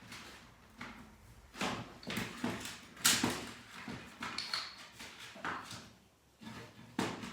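Irregular knocks, clacks and short scrapes of hard objects being handled and moved about on a workbench, with one sharp knock about three seconds in.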